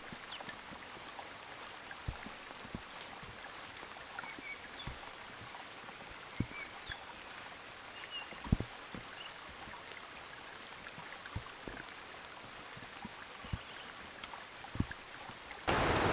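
Rain falling in woodland: a steady hiss with irregular drops landing close by, a few of them sharp and loud. About half a second before the end it cuts to a louder, rougher rush.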